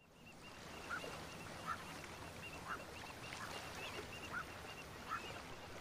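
Marsh ambience fading in. Short animal calls repeat about once a second over a steady, fast, high chirping chorus.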